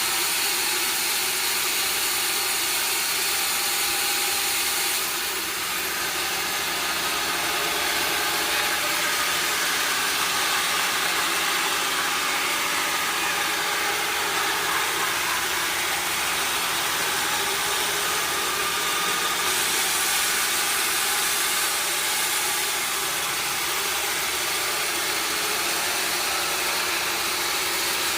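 Sawmill machinery running steadily: a continuous engine-like drone with steady tones and hiss, the level unchanging.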